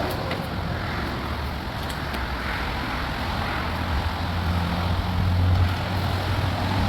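Steady low rumble of a running vehicle or road traffic, with a few faint clicks near the start.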